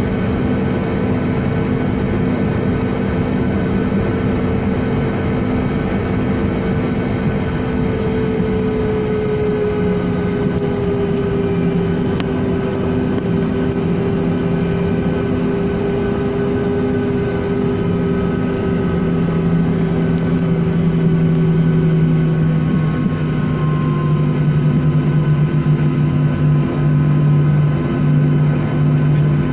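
Boeing 737 jet engines heard from inside the cabin while the airliner rolls on the ground. It is a steady hum with several whining tones. One higher whine slides down in pitch about ten seconds in, and a low hum grows louder in the last third.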